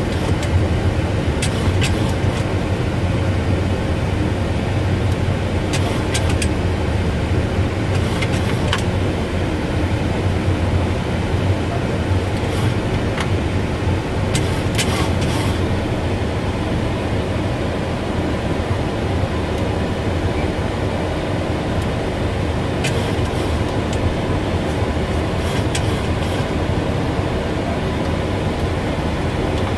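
Steady flight-deck noise of a Boeing 737 in its climb after takeoff: a constant low rumble of airflow and engines, with a few faint clicks scattered through.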